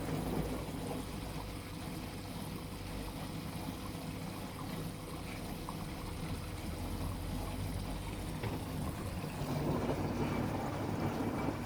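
LG front-loading washing machine running a tub clean cycle: a steady low motor hum with water trickling and swishing inside, growing a little louder about nine seconds in.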